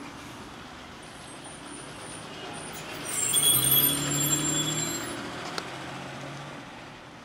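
A motor vehicle passes on the street. Its low engine hum swells about three seconds in and fades by about six seconds, with high thin whining tones on top while it is loudest. A single sharp click comes near the end of the pass.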